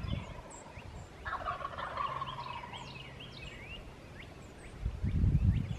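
A wild turkey gobbler gobbles once, a rapid rattling call lasting about a second, against small birds chirping. Near the end a louder low rumble comes in.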